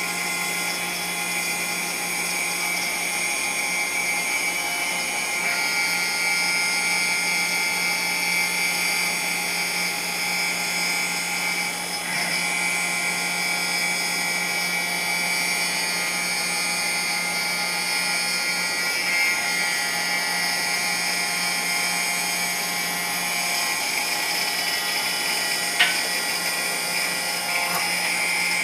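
6040 CNC router's spindle driving a single-flute end mill through aluminium on a light 10 thou cleanup pass: a steady high whine with several fixed tones over a hiss, holding level throughout, with a sharp tick near the end.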